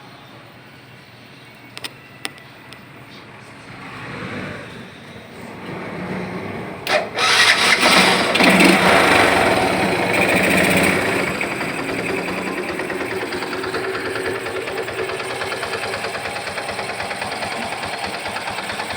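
Yamaha FZ16's carbureted single-cylinder engine starting: it catches about seven seconds in, runs loudly for a few seconds, then settles to a steady idle. This is a clean start now that the over-rich fuel-air mixture that caused the hard starting has been leaned out.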